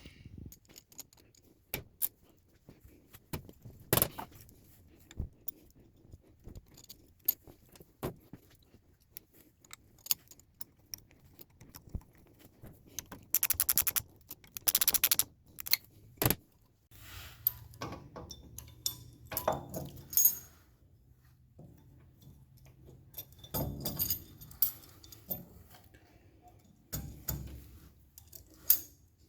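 Metal jack parts, bolts and tools clinking and clicking as they are handled and fitted together. About halfway through come two short runs of rapid clicking.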